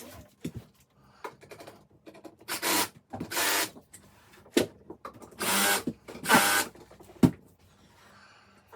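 Cordless drill driving screws into flat-pack furniture panels in four short bursts, in two pairs, with a few sharp knocks between them.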